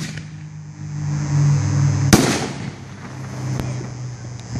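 A 60 gram canister firework shell (Phantom Exterminator, gold glittering brocade) bursting overhead: one loud, sharp boom about two seconds in that rings on briefly, followed by a couple of faint pops.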